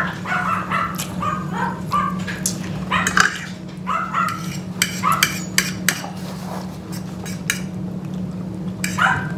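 A dog giving short high whines or yips, several in a row, over light clinks of forks on plates and a steady low hum.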